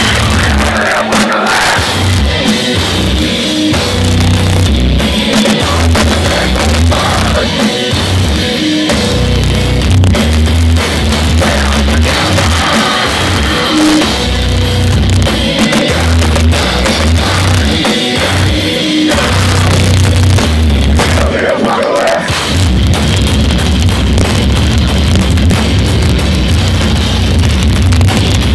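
Heavy metal band playing live, with distorted electric guitars and a drum kit, recorded loud from within the crowd.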